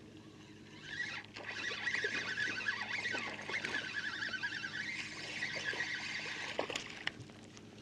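Fishing reel being cranked to bring in a hooked bass on a bent rod: a fast, fine whirring chatter from the reel that starts about a second in and stops near the end, with a couple of sharp clicks near the end.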